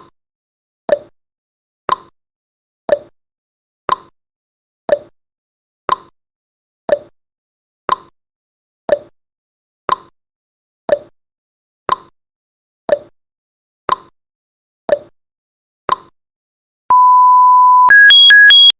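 Countdown timer sound effect: a clock tick once a second, then a steady one-second beep as the count runs out, followed by a loud electronic alarm switching quickly between high tones near the end.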